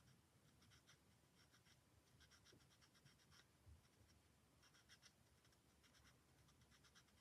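Faint scratching of a marker nib across card in short quick strokes, coming in small clusters, as small areas are shaded in.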